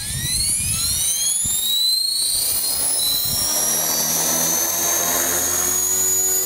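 Align T-Rex 450 electric RC helicopter spooling up for takeoff. The motor's high whine rises over the first two seconds, then holds steady as the rotor comes up to speed.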